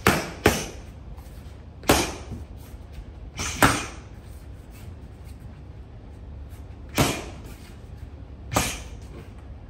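Punches landing on boxing focus mitts: about six sharp smacks at uneven spacing, two of them in quick succession about three and a half seconds in.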